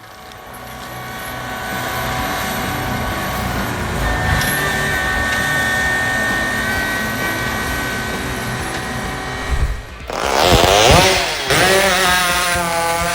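Fecon FTX 300 forestry mulcher running steadily under load, with several steady high tones over a rumble. About ten seconds in the sound switches abruptly to a saw engine revving rapidly up and down in pitch.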